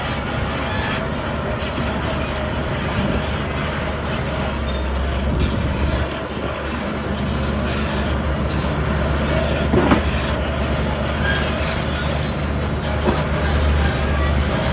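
Heavy diesel construction machinery running steadily with a low engine drone, with a sharp metallic clank about ten seconds in and a lighter knock near the end.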